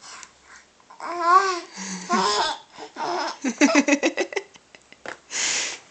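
Baby babbling: several wavering, pitched vocal sounds, with a quick run of repeated syllables about the middle. A short breathy burst comes near the end.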